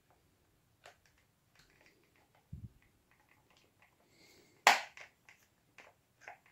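Small clicks and taps of a thin Phillips screwdriver and a plastic model train body being handled while working at a stubborn retaining screw. There is a soft low thump about two and a half seconds in, and a sharp click just before five seconds that is the loudest.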